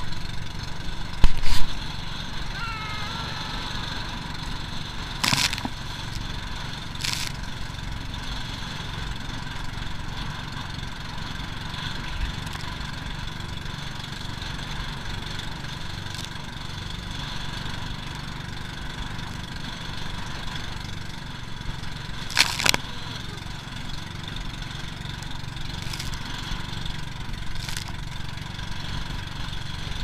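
Outrigger boat's motor running steadily at cruising speed, with a few sudden thumps as the boat rides over choppy waves.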